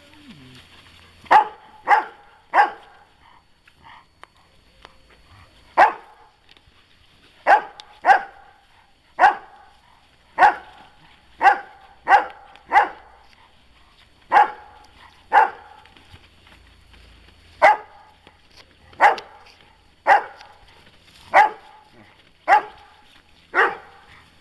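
Beauceron barking in single, sharp barks, about twenty of them at an irregular pace, with one pause of about three seconds after the first three.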